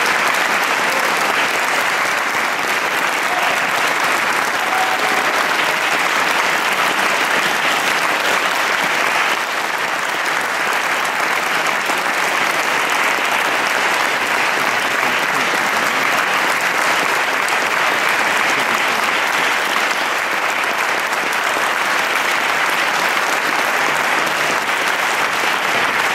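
Audience applauding steadily, a dense, continuous clapping that holds its level throughout.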